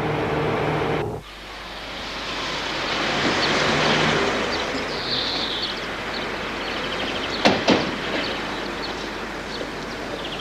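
Car engine humming, heard from inside the cabin, then an abrupt change to a BMW saloon outside, its engine and tyre noise rising and fading as it pulls up. Two car doors are shut about seven and a half seconds in, with birds chirping.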